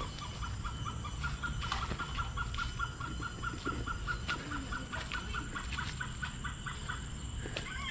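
A bird in the forest calling an even, rapid series of short notes at one pitch, about four a second, over a steady high insect drone.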